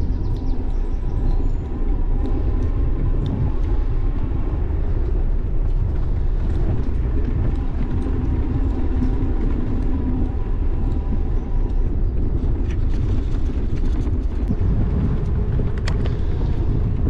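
E-bike rolling over a brick-paved street: a steady, loud low rumble from the tyres and frame vibrating on the pavers, with a few sharp clicks and knocks near the end.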